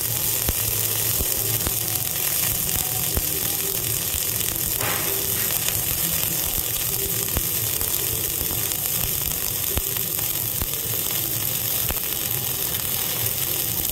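Self-shielded flux-core arc welding with 5/64-inch Lincoln NR-305 wire at 36 volts: a steady, crackling sizzle from the arc, with fine spatter pops throughout.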